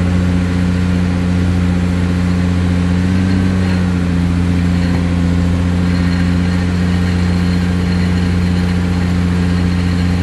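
Excavator-mounted vibratory pile hammer clamped on a steel pile, running with the excavator's diesel engine in a loud, steady, unchanging low drone.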